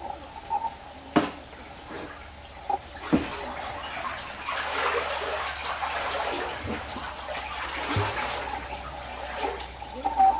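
Kayak paddle strokes splashing and dripping in the water inside a culvert tunnel, the sound echoing off its walls; the splashing grows louder about four seconds in. Two sharp knocks stand out about one and three seconds in.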